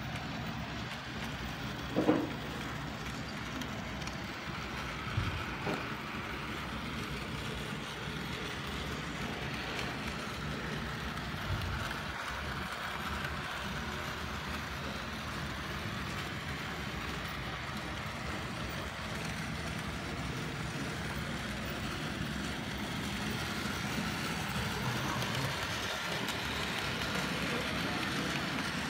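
Bachmann OO-gauge model of a Maunsell N class 2-6-0 locomotive with its coaches running along the layout track: a steady running noise of wheels and mechanism, with a sharp knock about two seconds in.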